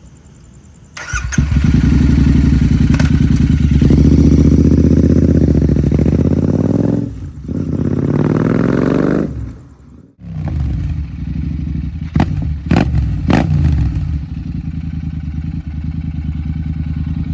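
Royal Enfield Interceptor 650 parallel-twin engine through an aftermarket Hunter megaphone-style exhaust, revved hard and held high, then revved again with a rising pitch. After a brief break it settles to a lower steady run with a few sharp pops or throttle blips.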